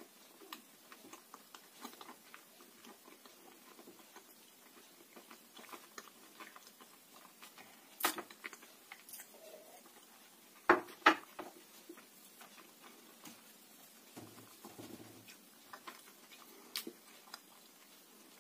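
A person chewing close to the microphone: a steady run of small clicks and crunches. One sharper click comes about eight seconds in, and two loud clicks come close together a little past halfway.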